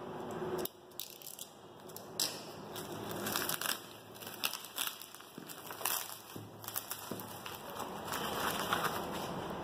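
Paper wrapping and packing tape being torn and crumpled by hand, a run of irregular crackles and rustles.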